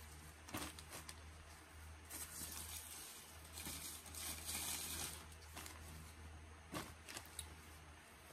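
Packaging being handled and opened by hand: irregular rustling and crinkling, with a few short sharp crackles. A low steady hum runs underneath.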